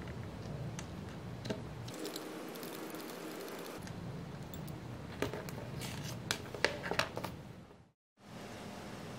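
Precision screwdriver turning a tiny screw into a 3D-printed plastic chassis: soft scraping and scattered small clicks of the tool and plastic parts over a low steady hum, with a quick run of sharper clicks late on before the sound fades out briefly.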